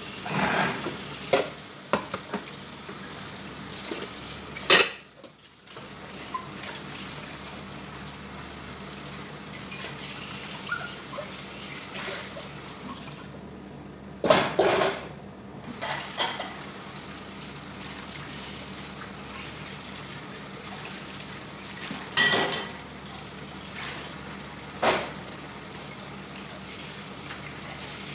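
Dishes being washed in a kitchen sink: a tap runs while plates, pots and lids are handled, with several sharp clinks and clatters as they knock together and are set down.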